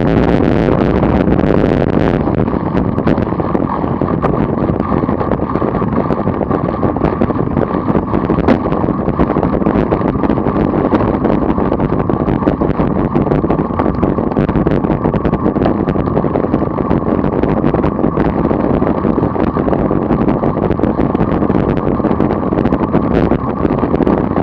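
Steady, loud wind rush buffeting a moving camera's microphone at about 27 mph, with road noise underneath.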